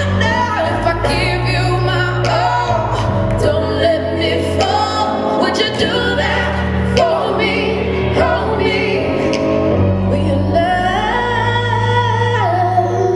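A recorded song plays: a solo singer's voice glides over long, sustained low notes.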